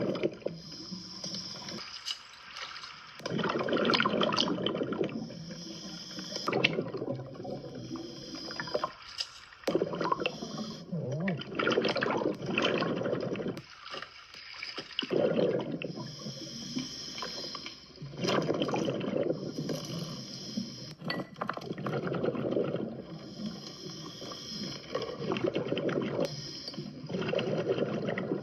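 A scuba diver breathing underwater through a regulator: exhaled bubbles gurgle in repeated bursts every few seconds, with short quieter gaps between.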